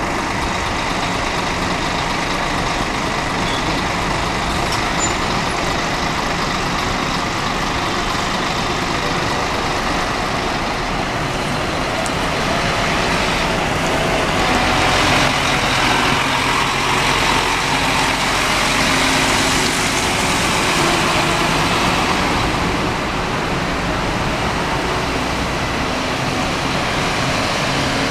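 Scania multi-axle coach's diesel engine running as the bus drives past, loudest about halfway through as it passes close by.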